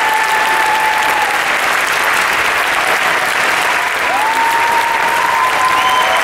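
Theatre audience applauding steadily, dense clapping without a break. About four seconds in, a single long high call from the audience rises in pitch and then holds over the clapping.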